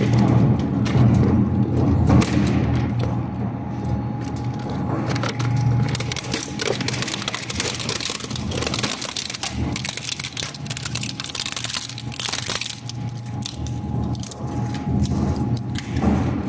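Twin-shaft plastic shredder running with a low drone while its hooked blades tear apart a plastic bucket. The plastic cracks and snaps over and over, most densely in the middle.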